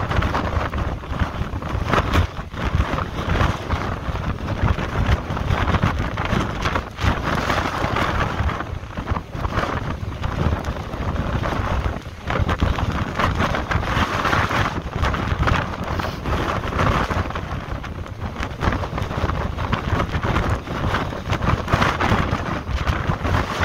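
Rough storm surf breaking against coastal rocks: a continuous rush of waves and spray that swells and eases every few seconds, with wind rumbling on the microphone.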